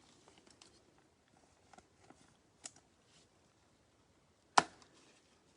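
Faint rustling and small clicks of trading cards and card packs being handled, with one sharp, loud click about four and a half seconds in.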